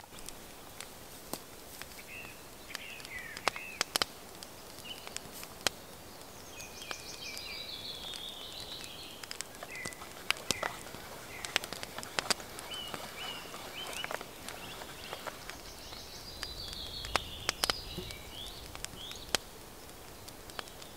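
Songbirds singing, including a descending trilled phrase of about two seconds heard twice. Scattered sharp clicks and snaps sound throughout.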